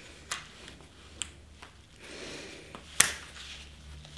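Small metal snap hook on a bag's nylon strap clicking as it is worked and fastened: a few short sharp clicks, the loudest about three seconds in.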